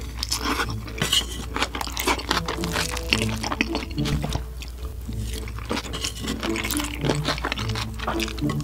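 Close-miked chewing and crunching of a mouthful of bibimbap, with a simple background melody playing throughout.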